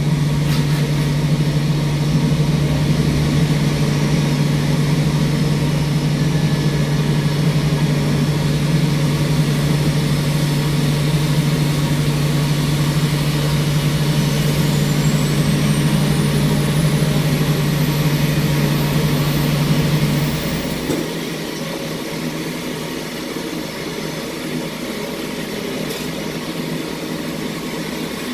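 Aircraft pushback tug's engine running steadily with a low hum, which cuts out about twenty seconds in, leaving a quieter steady engine noise. A faint high whine rises in pitch over several seconds midway.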